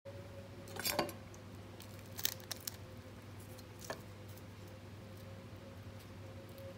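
A few faint clicks and knocks over a steady low hum: the loudest cluster about a second in, three quick ones a little after two seconds, and a single one near four seconds.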